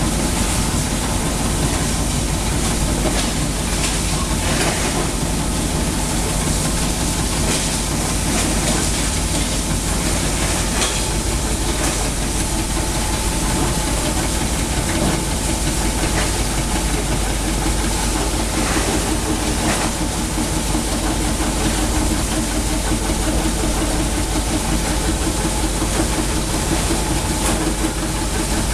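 Sawdust and wood-shaving glue mixing machine running: a steady, loud mechanical noise with a low hum and occasional light knocks.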